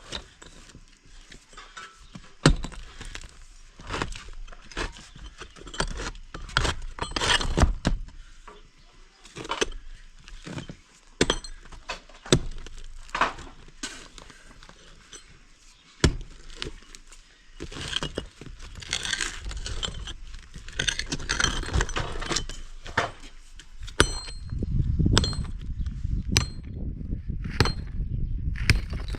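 Demolition of an old house: irregular sharp knocks with breaking, clinking debris. A denser, lower clatter of falling rubble comes in the last few seconds.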